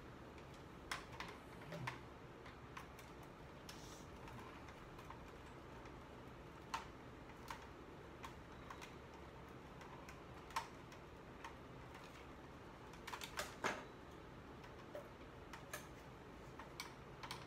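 Scattered small clicks and ticks of a screwdriver backing screws out of an RC car chassis, with a quick cluster of clicks late on.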